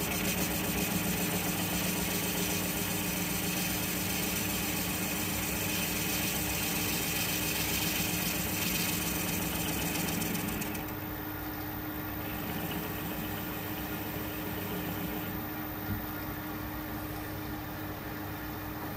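Metal lathe running while facing the end of a cast brake cylinder: a steady motor hum, with the tool cutting for the first ten seconds or so. After that the cutting sound drops away and the lathe runs on alone.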